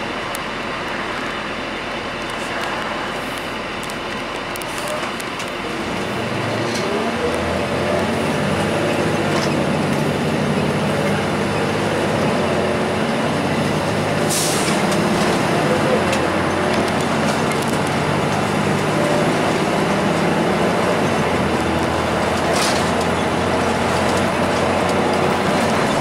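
A 2002 Blue Bird CS transit bus's Cummins ISC diesel engine, driving through an Allison automatic transmission, heard from inside the cabin over road noise. About six seconds in it pulls harder and gets louder with a deeper drone, as under acceleration. Two short sharp hisses cut through, one around the middle and one near the end.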